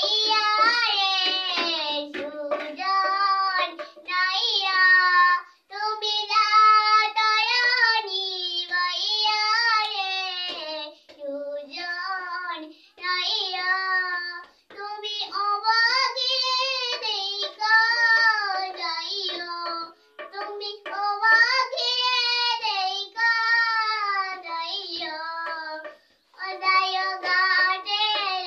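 A young girl singing a song unaccompanied, in phrases broken by short pauses for breath.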